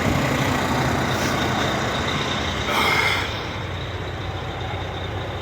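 Semi truck engine idling steadily while its air compressor builds brake-system air pressure. A short hiss comes in near the middle.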